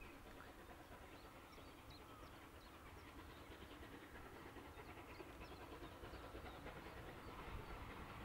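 Distant steam train approaching, faint and growing slowly louder as it comes nearer.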